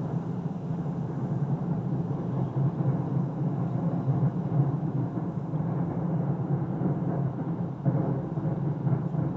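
Fireworks going off in a continuous rumble of distant booms, with a sharper bang about eight seconds in.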